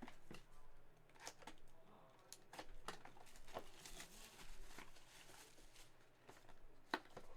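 Faint handling of trading cards and their packaging: scattered small clicks and rustles of card stock being opened and slid.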